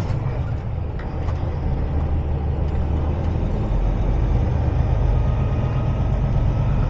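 Semi-truck's diesel engine running steadily at low speed while the truck is maneuvered, a deep rumble that shifts lower about three and a half seconds in. A short sharp sound at the very start.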